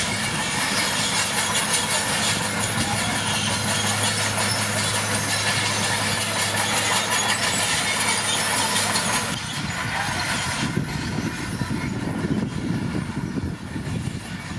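Komatsu D41P crawler dozer's diesel engine running steadily with its tracks moving. About nine seconds in the sound changes: the high-pitched noise drops away and a lower, uneven rumble takes over.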